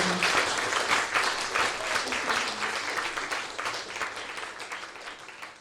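Audience applauding, loud at first then thinning out and fading away, with a few voices calling out.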